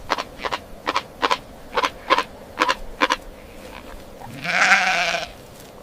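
Animal calls: a run of short, sharp calls about two a second, with one longer pitched call lasting about a second, starting about four seconds in.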